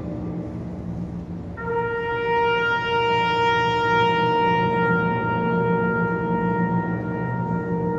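Wind band with brass and sousaphones playing a slow, solemn passage in long held notes. About one and a half seconds in, a high brass note comes in and holds almost to the end over sustained low notes.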